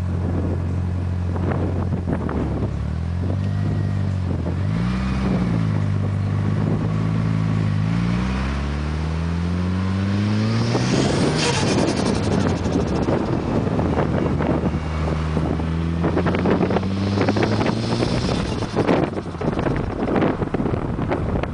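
Car engine running, its pitch dipping and rising, then climbing steadily as it speeds up. From about halfway through, gusty wind buffets the microphone with a flapping sound.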